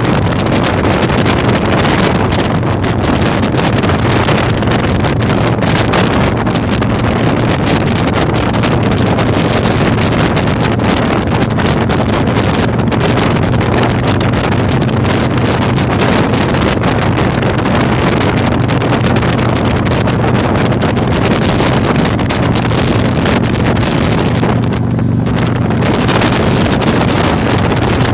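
Heavy wind noise buffeting the microphone over the steady drone of a Yamaha Virago 1100's V-twin engine cruising. The wind rush eases for about a second near the end, leaving the engine plainer.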